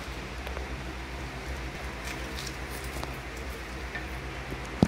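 Handfuls of sliced onion, chopped tomato and green chile strips dropped and spread by hand over marinated pork in a large pot: soft scattered patter and rustling over a steady low hum, with one sharp click near the end.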